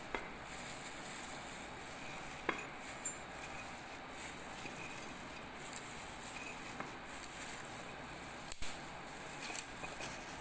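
Faint crinkling of a plastic food glove and a few small clicks as whole spices are pushed into a perforated metal spice infuser ball.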